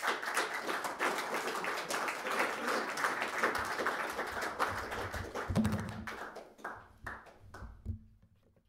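Audience applauding a speaker's introduction, dying away over the last couple of seconds, with a few low thuds near the end.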